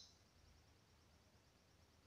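Near silence: a pause in the white-eye song, with only a very faint high chirping trace.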